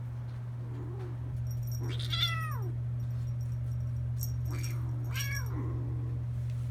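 Kitten meowing: three high meows that fall in pitch, one about two seconds in and two close together around five seconds.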